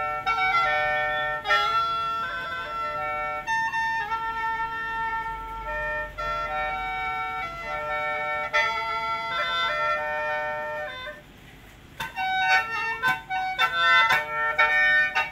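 Khaen, the bamboo free-reed mouth organ, playing a lively tune over a steady drone note. Sharp foot stamps punctuate the music; after a brief break about eleven seconds in, the playing resumes with the stamping more frequent.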